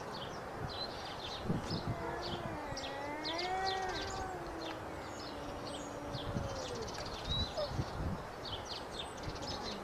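A cat's long, wavering yowl, rising and falling in pitch for about four seconds: the threat call of a tomcat in a face-to-face standoff with another cat. Birds chirp in the background.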